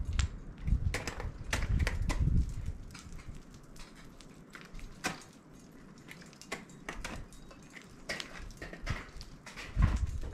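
Irregular sharp clicks and knocks of ice-climbing gear on ice, a few strikes every second or two, with low rumbling near the start and just before the end.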